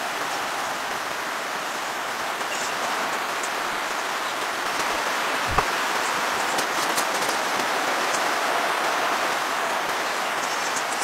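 Steady rain falling on the tent, an even hiss of drops with no let-up. A single dull knock comes about halfway through.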